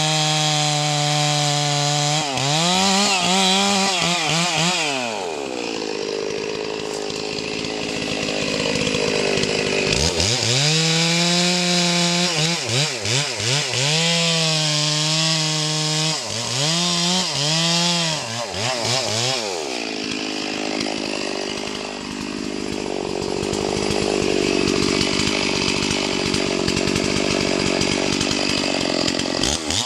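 Two-stroke gasoline chainsaw cutting into the trunk of a standing tree, its engine pitch rising and falling again and again as the chain bites into the wood. Twice it turns to a rougher, steadier sound for several seconds.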